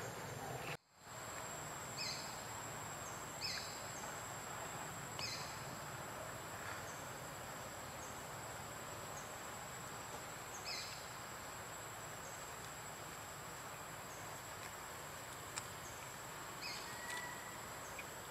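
Forest ambience: a steady high-pitched insect drone over a soft background hiss, with short falling chirps now and then. The sound drops out briefly about a second in.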